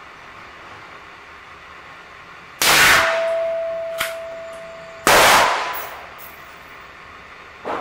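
Two shots from a Ruger Blackhawk single-action revolver firing .45 ACP cast-bullet loads, about two and a half seconds apart. A steady ringing tone holds between them, and a fainter bang comes near the end.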